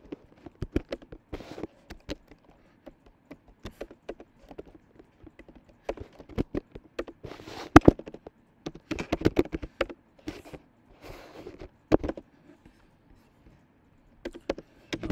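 Typing on a computer keyboard: irregular keystroke clicks, some in quick runs, with short pauses between.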